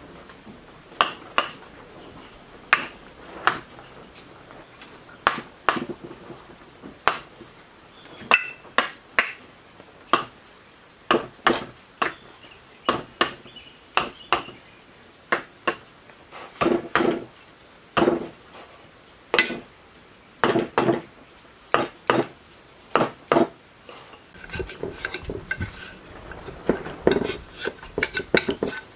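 Sharp knocks and clinks, irregular, about one or two a second, as a wooden dowel taps new copper windings down into the slots of a water pump motor's cast aluminium stator. In the last few seconds the taps come faster and lighter.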